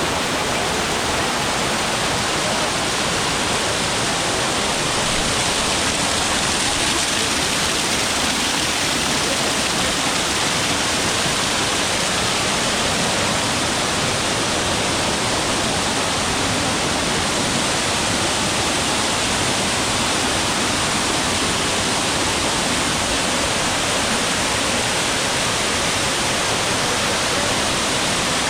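Waterfall pouring, a loud steady rush of falling water.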